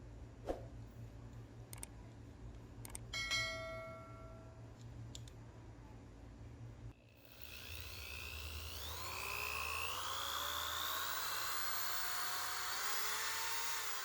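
A few light clicks and a short metallic ping over a low hum, then a small electric motor whining, its pitch rising in several glides from about halfway through, as in a micro RC car's drive motor speeding up.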